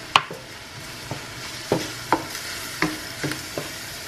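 Wooden spoon stirring browned ground beef and taco seasoning in a stainless steel skillet, knocking and scraping against the pan over the steady sizzle of the meat frying. The sharpest knock comes right at the start, followed by about seven lighter knocks.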